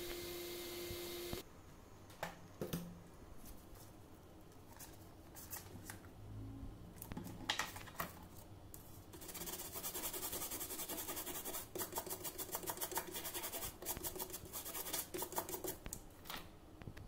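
Fingers and probes handling a bare phone circuit board: scattered light clicks, then a long run of rapid scratchy clicking. A steady electronic tone cuts off about a second and a half in.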